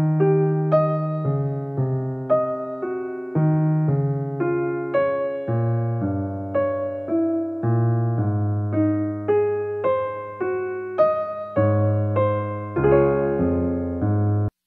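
Solo piano background music, notes struck at an even pace of about two a second. It cuts off abruptly just before the end.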